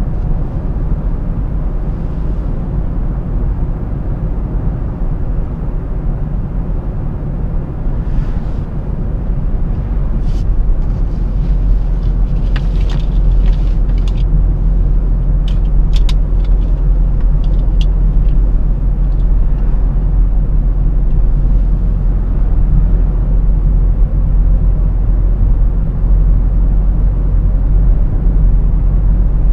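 A car driving at road speed, heard from inside the cabin: a steady low rumble of engine and tyre noise that grows a little louder about a third of the way in. Several brief, high clicks come in the middle.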